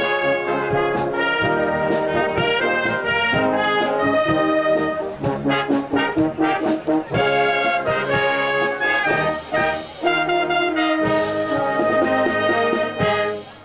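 Brass band playing a tune in full harmony, with trombones and cornets. The music ends with a final chord near the end.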